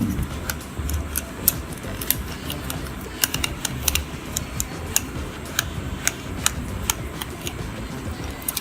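Irregular small clicks and taps of hard plastic being handled, as batteries are fitted into the pocket racer set's battery compartment.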